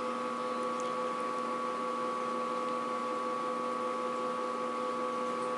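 Steady background hum: a few held tones over a soft even hiss, with nothing else happening.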